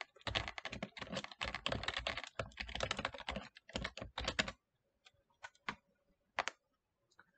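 Typing on a computer keyboard: a quick run of keystrokes for about four seconds, then a few single key presses with gaps between them.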